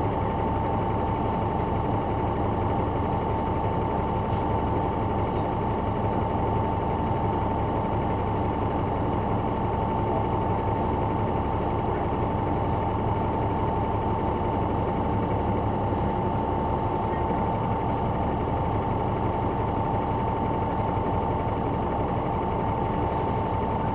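Caterpillar C9 diesel engine of a 2004 Neoplan AN459 articulated bus running at a steady speed, heard from inside at the back of the bus. A steady high whine sits over the engine throughout.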